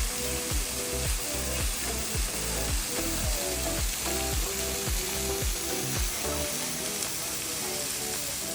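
Steady hiss of a waterfall's falling water mixed under background music with a steady beat of about two thumps a second.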